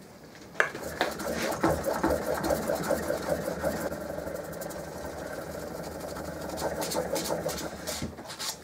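A chisel clamped in a wheeled honing guide is pushed back and forth over wet 1200 grit wet and dry paper, giving a steady rhythmic scraping as the bevel is honed. It starts about half a second in and stops shortly before the end.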